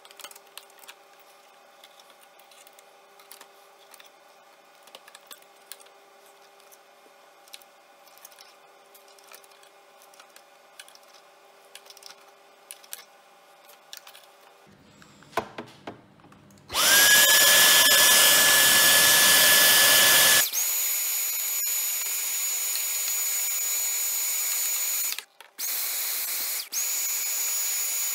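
Vacuum cleaner switched on a little past halfway, running loud and steady with a high whine; after a few seconds it steps down to a lower, quieter whine, and it cuts out briefly twice near the end. Before it starts, faint ticks of a paintbrush scrubbing lint off the sewing machine's metal bobbin area.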